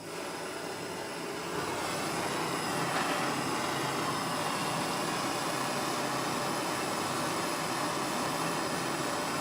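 Large gas soldering torch burning with a steady rushing hiss, growing louder about a second and a half in, while heating a big silver solder joint.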